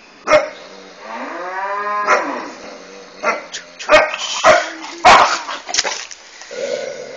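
An animal confrontation between a dog and a chicken. One long drawn-out call rises and then falls, then comes a quick run of sharp barks and squawk-like bursts, with a sharp bark or hit about a third of a second in.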